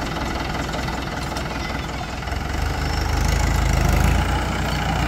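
Farm tractor's diesel engine running at a low chug, getting louder from about halfway through, then settling again near the end.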